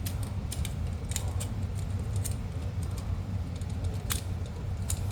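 Irregular small metallic clicks and taps from a hand tool working the carbon brush holders of a cooling fan motor, prying them open so the stuck brushes move freely, over a steady low hum.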